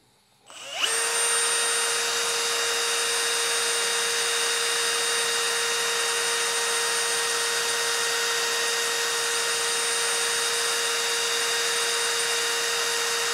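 Electric drill spun up to high speed, running steadily with a constant whine, turning a chucked engine valve while its stem is polished with worn emery cloth. It starts about a second in and winds up quickly.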